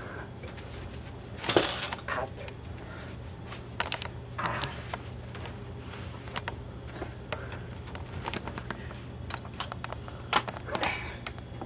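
Scattered small clicks and knocks over a low steady hum, with a short rushing noise about a second and a half in and another near the end.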